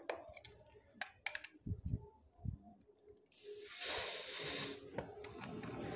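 R134a refrigerant gas hissing out of the charging hose at the gauge manifold fitting as the hose is purged of air. The hiss starts a little over three seconds in, lasts about a second and a half and then fades, after a few faint clicks of tool handling.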